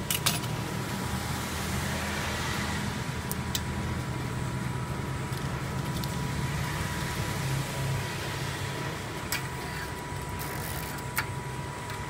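Modified roll laminating machine running: a steady motor hum and rumble from the turning rollers with a thin, steady high whine, and a few light clicks.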